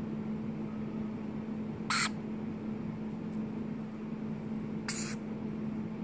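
Young varied lorikeets giving two short, shrill squawks about three seconds apart while being scratched.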